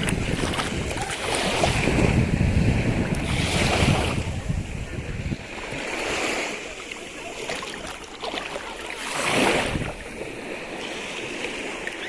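Ocean surf: waves breaking and washing in, swelling and fading every few seconds. Wind buffets the microphone with a low rumble during the first half.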